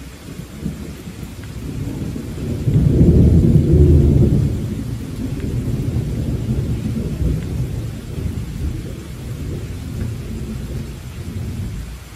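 Rolling thunder over steady rain: a low rumble builds from about half a second in, is loudest about three to four seconds in, then slowly dies away.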